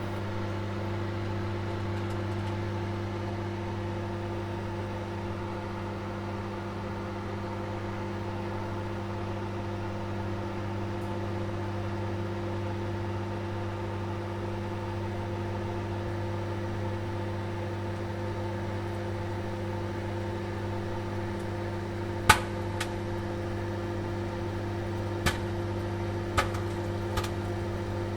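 Microwave oven running with a steady hum while popcorn heats. Near the end the first kernels begin to pop: a handful of scattered, sharp pops, the first the loudest.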